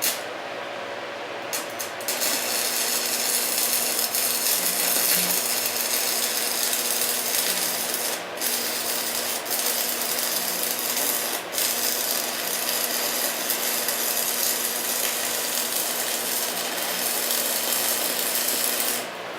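Stick-welding arc crackling and sizzling steadily after a couple of short strikes, with two brief breaks along the way, then cutting off near the end.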